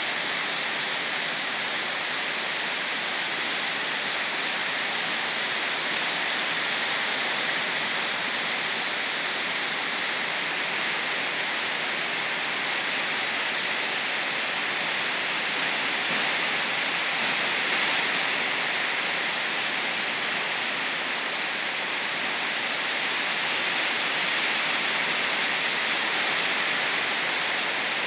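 Heavy rain falling steadily: an even, unbroken hiss of a downpour.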